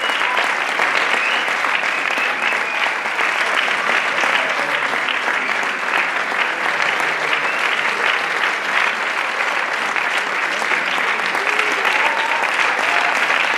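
Audience applauding, dense steady clapping throughout, with a few voices calling out near the end.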